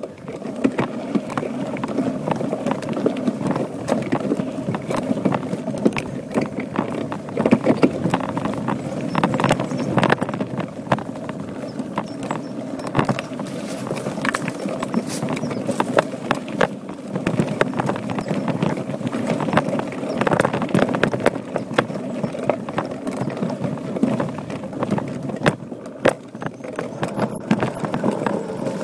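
Voodoo Bizango mountain bike ridden over a rough dirt singletrack: a steady rumble of tyres on the trail, with constant rattling clicks and knocks from the bike over bumps.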